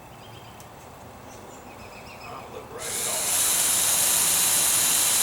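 A small power drill starts a little under three seconds in and runs steadily with a high, hissing whir.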